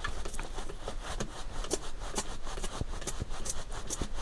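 Irregular small clicks and taps of plastic parts being handled as hands work the front suspension and coil-spring shock on a Tamiya MF-01X RC car chassis.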